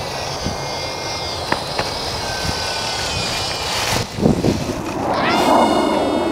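RC model airplane's motor whining overhead, its pitch sliding down around the middle and then rising about five seconds in as the throttle is opened. A few low bumps come at about four seconds.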